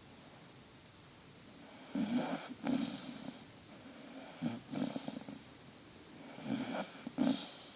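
A sleeping Staffordshire bull terrier puppy snoring: after about two seconds of quiet, three snores come roughly two seconds apart, each a double snort.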